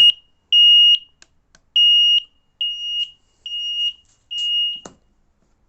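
Flamingo carbon monoxide alarm sounding: loud, high-pitched beeps each about half a second long, repeating a little under a second apart, triggered by carbon monoxide building up from a burning carbon-rod hand warmer. The beeping stops with a click about five seconds in.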